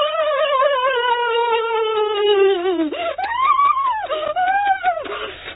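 High-pitched whining: one long whine sliding slowly down in pitch, then shorter whines that rise and fall, with short crunchy noises between them.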